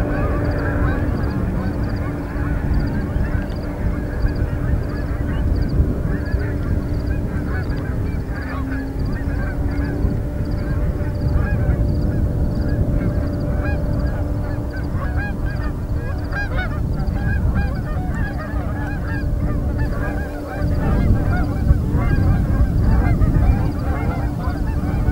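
A large flock of Canada geese honking, many birds calling over one another without a break as they fly in and land on a field. A steady low rumble runs underneath.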